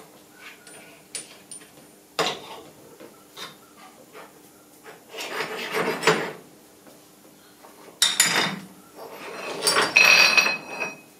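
Steel clamp and a steel plate being handled on a milling machine table: metal clinks, clicks and scrapes as the clamp is loosened and the plate is shifted free, with a brief metallic ring near the end.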